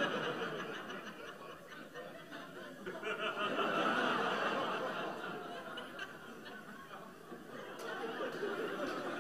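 Audience laughing: a wash of many people's laughter that swells about three seconds in, eases off, and picks up again near the end.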